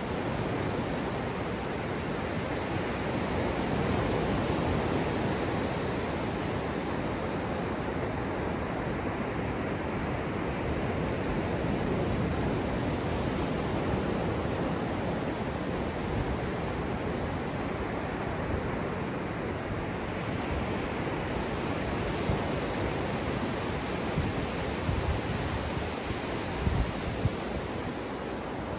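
Ocean surf breaking and washing up a sandy beach: a steady rushing wash that swells and ebbs as each wave comes in. A few short low thumps come near the end.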